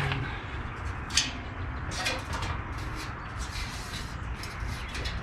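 Irregular clanks and rattles of a Weber Summit gas grill's metal parts as they are handled, the loudest knock about a second in, over a steady low rumble.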